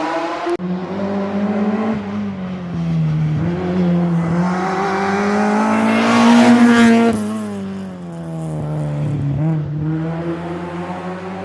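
A rally car's engine at full stage pace, its note rising and dropping as it accelerates and shifts gear, loudest as it passes close about six seconds in, then fading.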